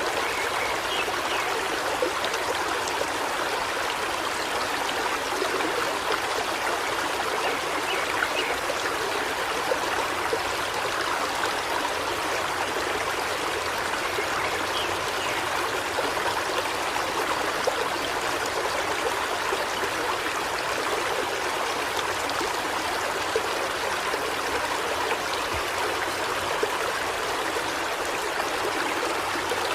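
River water flowing steadily, an even rush with no breaks.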